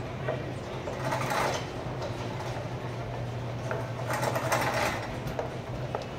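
Shopping cart rolling over a hard store floor, with a steady low hum underneath. The noise swells louder about a second in and again around four seconds.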